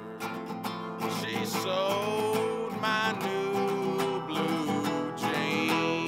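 A man singing long held notes to a strummed nylon-string classical guitar.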